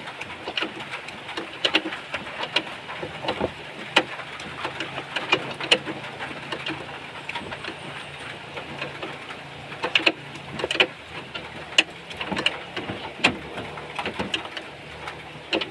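Irregular sharp clicks and knocks, a few each second and unevenly spaced, over a steady background hiss with a faint low hum in the middle.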